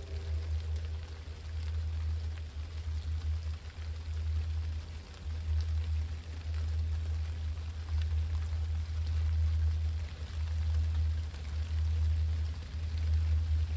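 Low, steady rumble of diesel locomotives running, GP60s with EMD 16-cylinder two-stroke engines, under falling rain with scattered drops ticking close by.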